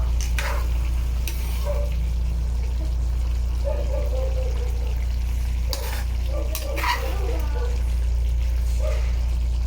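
Chicken curry frying in a pan, with a spoon knocking against the pan a few times as it is stirred, over a steady low hum.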